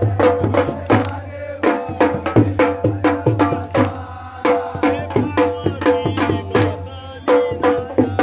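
Konkan Jakhadi folk-dance music: a steady, driving drum beat under a sustained melody.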